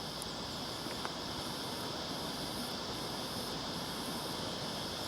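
Steady outdoor background noise, with a faint high-pitched buzzing that pulses about once a second.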